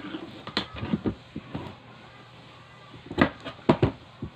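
Kitchen knife cutting a carrot against a plastic cutting board: a few sharp knocks, the loudest in a cluster from about three seconds in.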